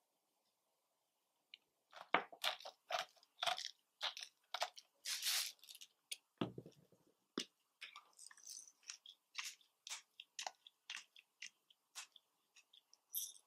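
Irregular crunching and crackling clicks as salt and black pepper are put on a baked cloud egg on toast. A dull knock comes about six seconds in.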